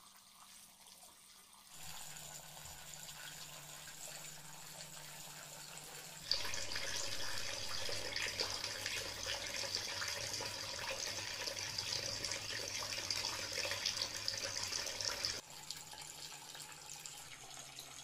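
Water pouring and splashing in a small tabletop cement fountain: thin streams fall from the spouts into a tray and down into the pebble basin, over a steady low hum from its mini pump. After a near-silent first second or two the splashing is faint. It grows louder about six seconds in and drops back about fifteen seconds in.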